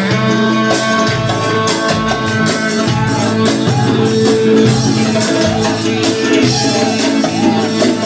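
Lively dance music from a wedding band's electronic keyboard: an ornamented melody over held notes and a steady drum beat.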